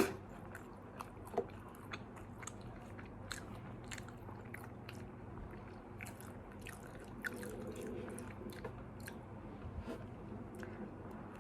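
Close-up chewing and biting of McDonald's fast food, with small crunches and wet mouth clicks scattered irregularly, over a steady fan hum.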